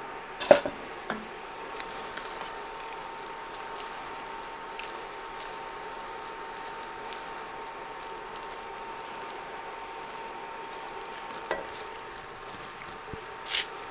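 Fried rice with vegetables and egg sizzling steadily in a hot cast-iron pot while it is stirred with a wooden spatula, with a short sharp knock about half a second in.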